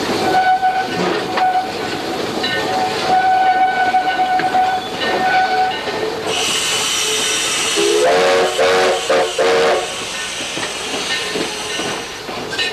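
Cab noise of the steam locomotive Reno under way, with a steady high tone for the first half. From about six seconds in, steam hisses loudly, and from about eight to ten seconds the steam whistle sounds in a few short blasts, its pitch rising as each one starts.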